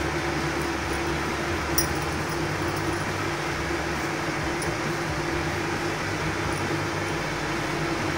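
A steady mechanical hum with a constant droning tone, and a faint tick about two seconds in.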